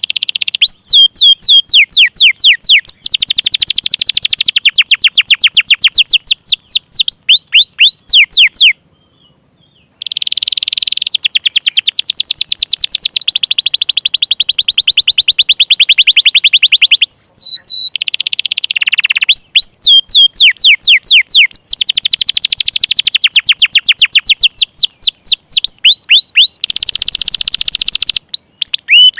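Domestic canary singing long runs of fast, high trills, each phrase a rapid string of repeated notes. The song breaks off once for about a second, about nine seconds in.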